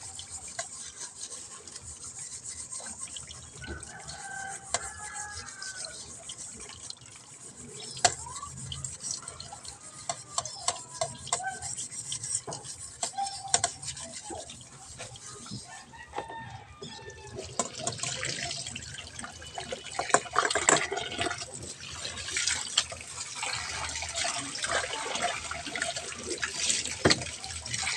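Washing up at a kitchen sink: scrubbing and water running, with scattered clinks and knocks that grow busier in the second half.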